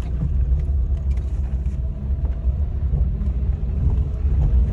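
Small car driving along an unpaved dirt track, heard from inside the cabin: a steady low rumble of engine and tyres on the rough ground.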